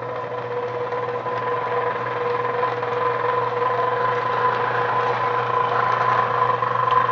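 Model locomotive's electric motor and drive gears running in reverse with a steady whine and a grinding rattle, slowly getting louder, then cutting off suddenly at the end. The gear grinding appeared after a wheel repair.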